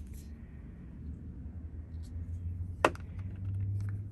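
Glass nail polish bottles being handled: a few light clicks and one sharp click about three seconds in, over a steady low hum.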